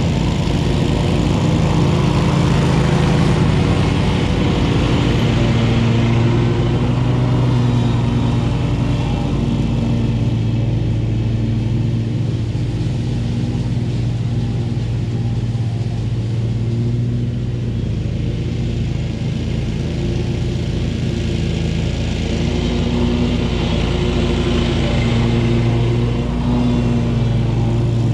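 Scag V-Ride II stand-on commercial mower running steadily while mowing, the engine's note shifting slightly now and then, with a hiss from the cutting deck above it.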